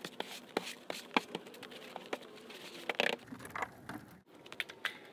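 Snow brush sweeping snow off a pickup truck's hood: a run of irregular brushing strokes and scrapes. A brief break about four seconds in is followed by a few light clicks.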